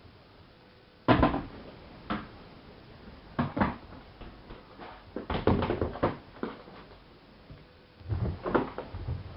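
Irregular knocks and clunks from a front-loading washing machine at the end of a boil-wash cycle, the loudest about a second in, with smaller clusters every second or two after.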